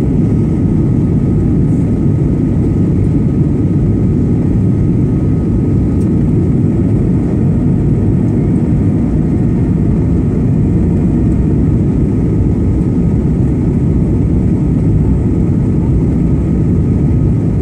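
Steady low roar of engine and airflow noise inside the cabin of a Boeing 737-900 on landing approach with its flaps extended, with a faint steady whine above it.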